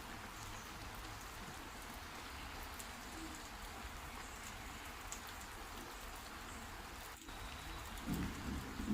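Steady rain falling, with the sharp taps of single drops landing close by. It briefly drops out about seven seconds in, and louder, uneven low knocks join near the end.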